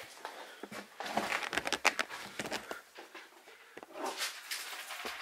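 Scuffing, rustling and a quick run of small clicks and knocks, from someone clambering through a wooden-framed wall opening over debris, with a second patch of rustling near the end.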